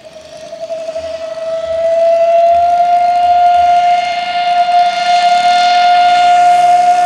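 Steam locomotive whistle blown in one long, steady note, growing louder about two seconds in and then cut off.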